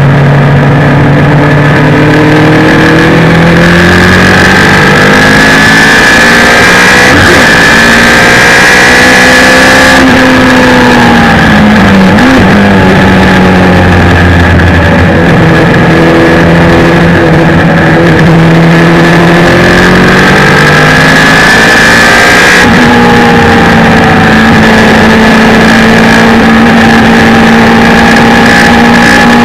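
Suzuki Hayabusa 1300 inline-four motorcycle engine, fitted in a race car with an Akrapovic exhaust, running hard on track and very loud. Its note falls and rises as the car slows for and drives out of corners, with a sudden change in pitch about three quarters of the way through.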